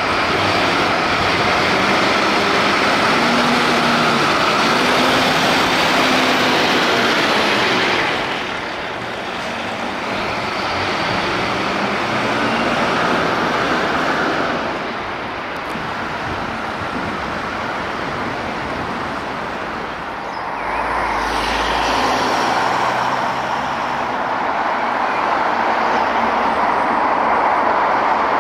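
Heavy road vehicles running and passing amid steady traffic noise, with the sound changing abruptly about 8, 14 and 20 seconds in.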